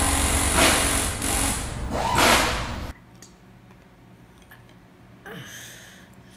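A loud, noisy, rushing intro sound effect with two swells cuts off suddenly about three seconds in. It is followed by a quiet room with a few faint clicks as a CD and small plastic parts are handled.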